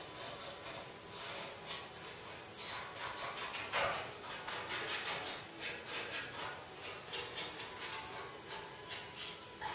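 Paintbrush scrubbing weld-through primer onto bare steel body panels in quick, uneven strokes.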